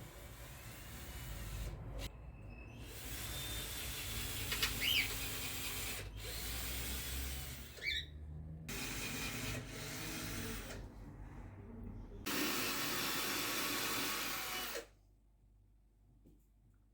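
A power tool, such as a drill, runs in several stretches that start and stop abruptly. The last stretch is the loudest and cuts off near the end.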